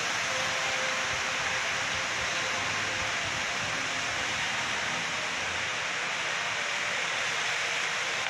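Heavy rain falling steadily on rainforest foliage, a constant even hiss.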